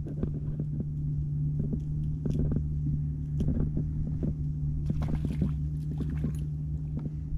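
Suzuki outboard motor idling with a steady low hum, with scattered knocks of handling on the boat and, about five seconds in, the splash of a released fish hitting the water.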